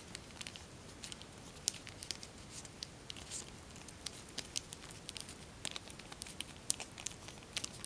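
Tissue-foil origami paper being handled and creased by hand, giving faint, irregular crinkles and light ticks.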